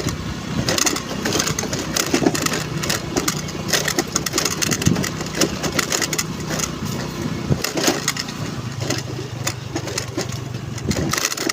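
Honda Navi's small single-cylinder engine running under a dense, irregular clatter of knocks and crunches, typical of tyres and bodywork rattling over a rough, stony road.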